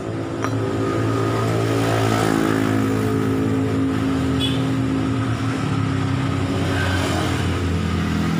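An engine running steadily throughout, its pitch drifting slightly up and down.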